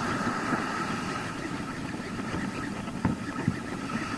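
Ocean surf washing up the beach, with wind rumbling on the microphone and a faint steady high tone. A single sharp click comes about three seconds in.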